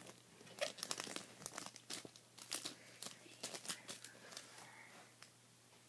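Foil Pokémon booster pack wrapper crinkling as it is handled, a string of short, uneven, faint crinkles and rustles.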